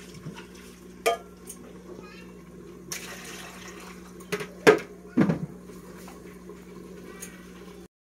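A metal cooking pot and utensil knocking and clinking a few times, the loudest pair of knocks about halfway through, over a steady low hum.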